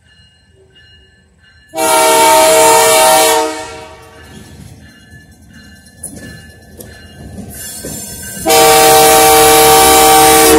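Canadian Pacific diesel locomotive's air horn sounding two long blasts about five seconds apart, each several notes sounding together. Between the blasts come the quieter clicks and low rumble of the slow-moving train.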